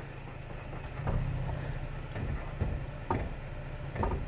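2022 Toyota Tacoma Trail Edition's engine running low and steady as the truck crawls over rock, with a scattering of short knocks and crunches from the tyres and suspension working over the ledge.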